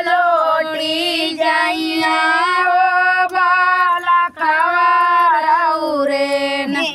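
A woman singing a Bhojpuri devotional folk song solo, in a high voice with long held, wavering notes and a short breath about four seconds in.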